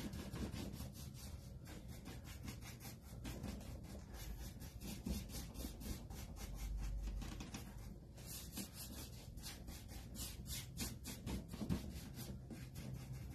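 Small round paintbrush scrubbing chalk-style paint onto a wooden bookshelf spindle in quick, repeated strokes.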